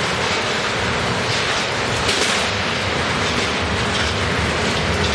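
Dense crackling of small electrical sparks still discharging inside an acrylic block etched with a Lichtenberg figure, over a steady low hum.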